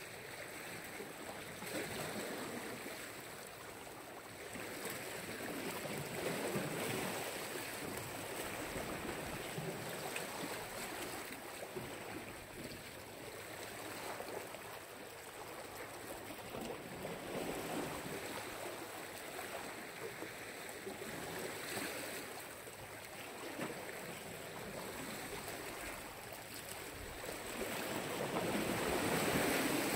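Black Sea surf washing onto the shore: a steady rush of waves that swells and eases every few seconds.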